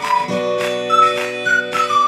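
Background music: a melody of short high notes over held chords, with a regular plucked beat; the chord changes about a third of a second in.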